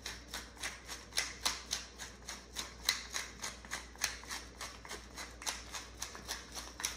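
Hand-twisted pepper mill grinding black peppercorns: a steady run of short crunchy rasps, about three a second.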